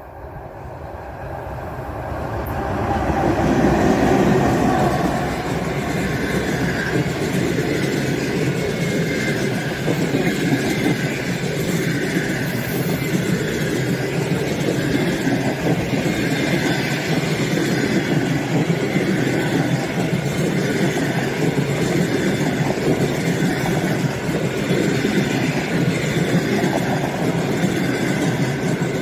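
An EP1 electric locomotive passes close by hauling a long passenger train. The noise builds over the first few seconds as the locomotive goes by, then holds as a steady rumble of the passenger cars' wheels rolling on the rails.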